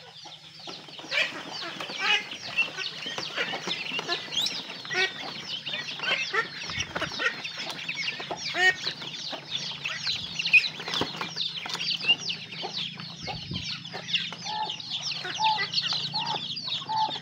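Young poultry peeping in a crowd: a dense run of short, high, falling chirps, joined near the end by a few lower, repeated clucking calls.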